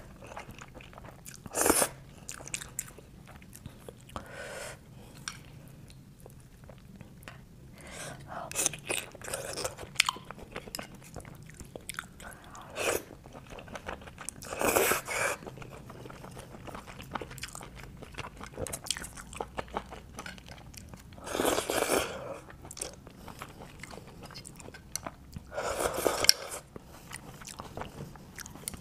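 A person eating grilled oysters with garlic and glass noodles: slurping the oyster from the shell and chewing, with a few louder slurps scattered through.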